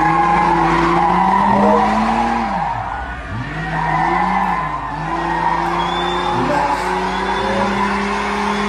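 Pickup truck engines, a Chevrolet S10 and a VW Amarok, revving hard with the pitch rising and falling and a dip about three seconds in, while their tyres spin and squeal on asphalt.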